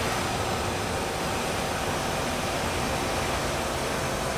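Steady jet-engine rush from a Boeing 767-300ER as the airliner rolls along the runway.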